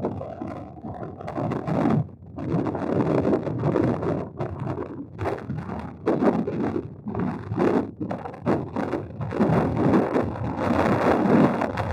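Wind buffeting an outdoor microphone: an uneven rumbling noise that swells and drops in gusts, with a few brief lulls.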